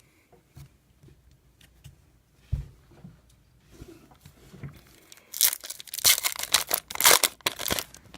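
A trading card pack's wrapper being torn open with crinkling and ripping, in a quick run of loud tears starting about five seconds in, after a single soft thump.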